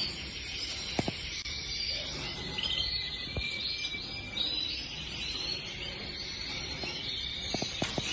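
Canary nestlings begging while a parent feeds them: a continuous, high-pitched chatter of many short calls, with a few light clicks about a second in and again near the end.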